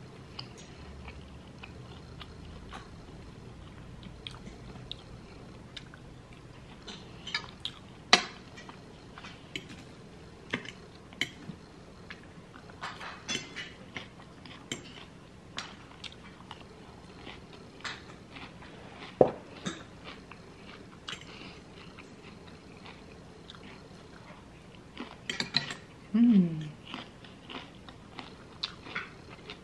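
Close-miked chewing and biting of food, with a fork and knife clicking against the plate now and then.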